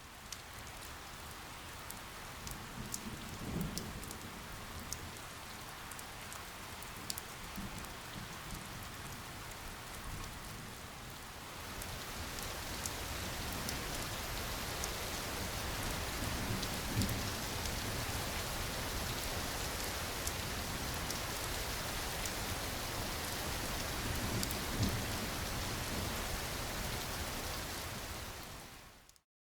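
Steady rain falling, with scattered drop ticks, growing heavier about a third of the way in. A few low rumbles sound beneath it, and it cuts off abruptly just before the end.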